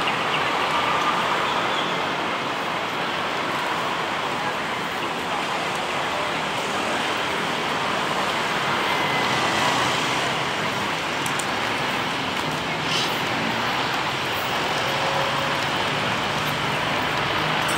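Steady city traffic noise, an even wash of sound with no distinct events standing out.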